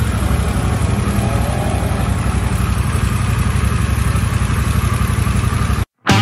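Harley-Davidson Pan America's V-twin engine idling steadily, a low pulsing rumble. It cuts off suddenly near the end.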